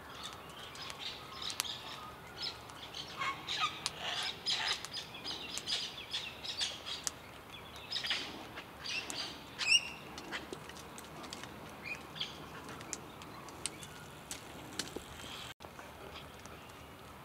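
Birds chirping in many short, high notes, busiest for the first ten seconds and sparser after.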